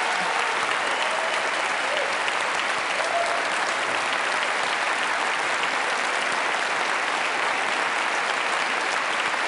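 Large theatre audience applauding steadily in a standing ovation: dense, even clapping from many hands throughout.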